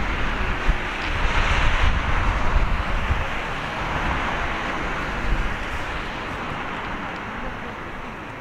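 Jet engines of a taxiing Boeing 767-300ER running at low taxi power, a steady rushing hum that gradually fades. Wind buffets the microphone throughout.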